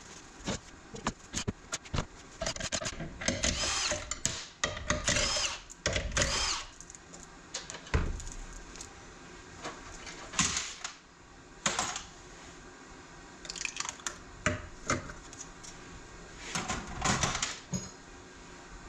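A handheld power tool running in several short bursts, with a wavering whir. Sharp clicks and knocks of metal parts come between the bursts.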